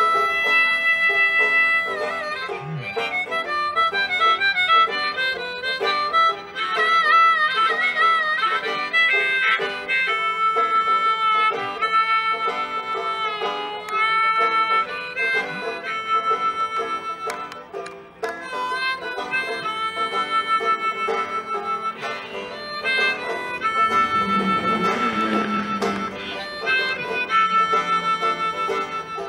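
Harmonica, cupped in the hands against a microphone, playing a blues melody of held and repeated notes, some bending and wavering near the middle, over a picked banjo accompaniment.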